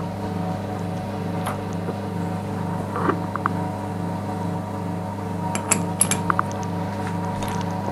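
Steady hum of the IZh 1I611P lathe's motor running while the spindle and chuck are stopped. Light metallic clinks come from the three-jaw chuck and its key being handled, with the loudest about three seconds in and a cluster around six seconds in.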